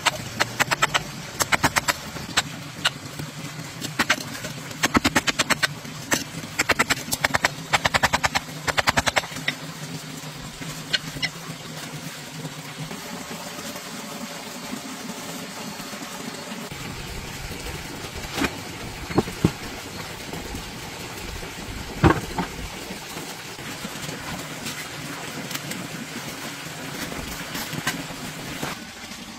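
Quick runs of small sharp taps and scrapes of a hand tool digging packed soil out of a freshly cast cement stove for about the first nine seconds, then a few single knocks later on. A low steady hum runs underneath.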